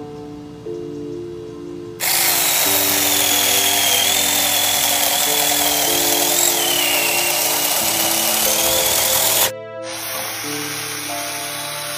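Small 24V battery-powered mini chainsaw (4-inch bar) running and cutting into wood, a loud rasp with a wavering high whine. It starts suddenly about two seconds in and cuts off suddenly near the three-quarter mark, then comes back quieter. Background music plays throughout.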